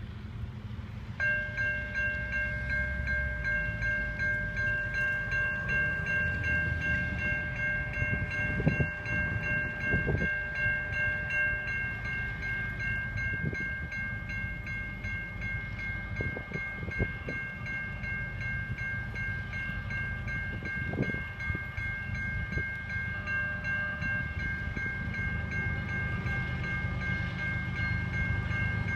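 Freight train wheels squealing on a sharp curve: a steady, high-pitched squeal of several tones that sets in about a second in and holds, from steel wheel flanges grinding against the rail. Under it runs the low rumble of the approaching diesel locomotives, with a few clanks.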